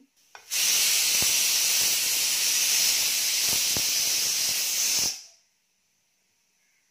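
Mustard seeds sizzling in hot coconut oil, a loud steady hiss with a few faint pops as the seeds begin to crackle. It starts about half a second in and cuts off suddenly about five seconds in.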